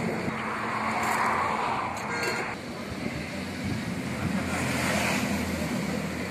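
Outdoor roadside background: a steady rush of wind on the microphone and a low hum of passing traffic, with a couple of light metal clinks from the steel serving ladle and bowls about one to two seconds in.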